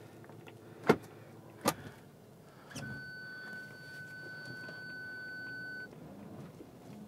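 Two sharp clicks, then another click and a steady high electronic beep held for about three seconds before cutting off.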